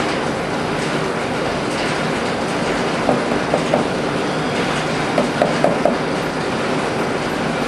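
Steady loud rushing background noise, with two quick clusters of light metallic clinks about three and five seconds in, from hands working on the engine's cylinder head.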